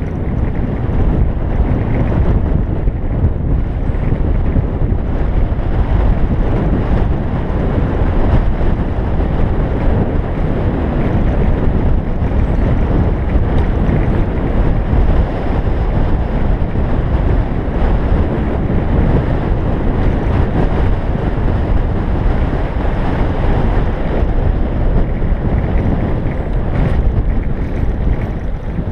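Wind rushing and buffeting over a bike-mounted camera's microphone on a fast bicycle descent: a loud, steady, low rumbling noise.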